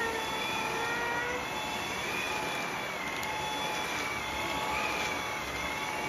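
Dyson cordless stick vacuum running steadily: a high whine over a constant hiss, the whine's pitch wavering a little.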